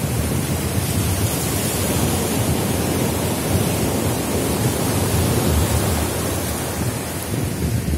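Sea surf breaking and washing up the sand: a steady rushing hiss with a fluctuating low rumble.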